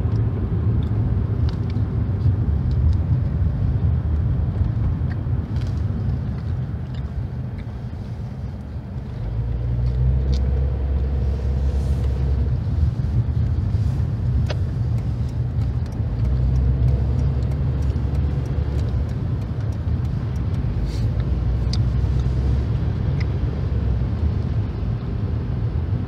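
A moving car heard from inside its cabin: a steady low rumble of engine and road noise. It eases off around eight seconds in and builds again about a second later.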